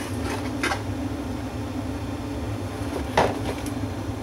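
Cardboard and plastic toy packaging being handled: a few faint rustles and a sharper knock about three seconds in, over a steady low hum.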